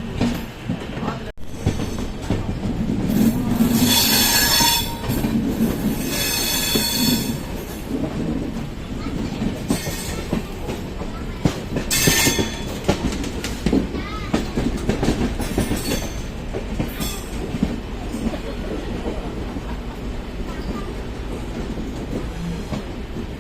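Passenger train running on the rails with a steady low rumble and wheel clicks, and high-pitched wheel squeals about three seconds in, again around six seconds, and briefly near twelve seconds.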